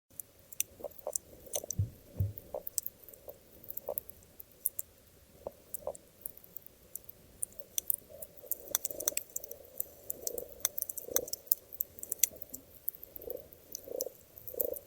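Underwater coral reef recording: a continual scatter of sharp clicks, with irregular low grunts and pops from fish and a couple of low thumps about two seconds in.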